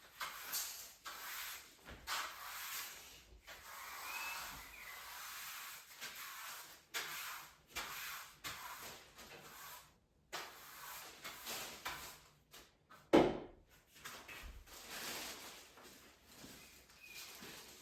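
Irregular handling noises: rubbing, scraping and light knocks of objects being moved, with one sharp knock about thirteen seconds in.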